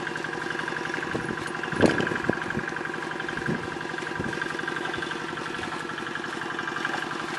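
A vehicle engine idling steadily, with a couple of brief soft knocks.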